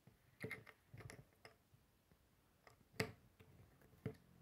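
Faint clicks of small plastic Lego bricks being handled and pressed together: a handful of separate ticks, the loudest about three seconds in.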